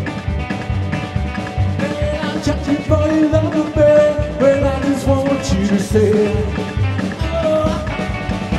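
A rock-and-roll band playing: a male lead voice singing over an upright double bass and drums, with a steady low beat about twice a second.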